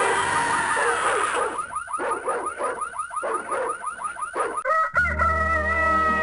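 Cartoon bird calls: quick chirping pitch sweeps several times a second, typical of a morning sound effect. About five seconds in they stop with a click and a held music chord begins.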